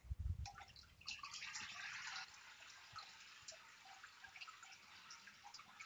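Hands sloshing water and paper pulp in a plastic vat, then a brief splash about a second and a half in as water streams off a papermaking mold. A faint trickle and scattered drips follow as the water drains through the mold's mesh.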